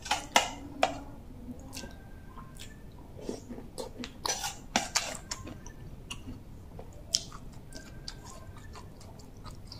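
Metal spoon clinking and scraping against a soup bowl while scooping bamboo-shoot soup with sticky rice, with soft chewing sounds in between. The sharpest clinks come right at the start, again about four to five seconds in, and once more near seven seconds.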